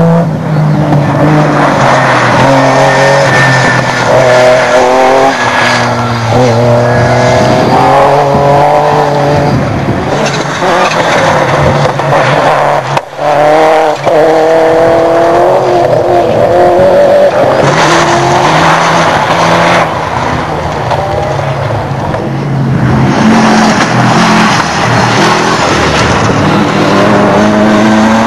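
Rally cars driven flat out past one after another, engines revving high and dropping again at each gear change, with tyres scrabbling on a loose, dusty surface.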